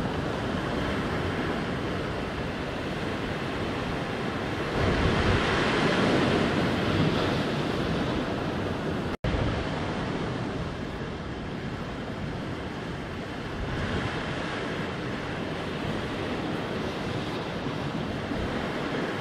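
Ocean surf washing over a rocky shoreline, with wind rumbling on the microphone. The surge swells louder about five seconds in and again near fourteen seconds, and the sound cuts out for an instant about nine seconds in.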